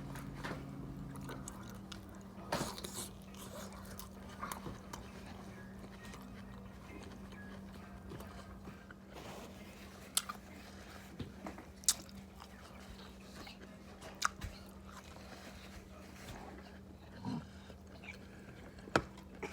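Close-up sounds of a person chewing and biting into food: sausage, eggs and rice. Scattered sharp clicks and taps break in every few seconds over a faint steady hum.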